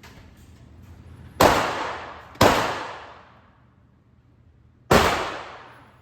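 Three handgun shots, the first two about a second apart and the third some two and a half seconds later, each ringing out in the echo of an indoor range.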